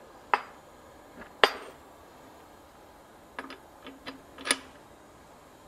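Steel fly press tooling clinking as the hexagon punch is worked out of the tool holder by hand. There are two sharp metallic clinks in the first second and a half, the second the loudest, then a run of lighter taps ending in another loud clink about four and a half seconds in.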